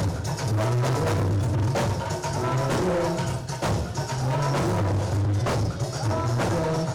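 Background music with a prominent bass line and a steady drum beat.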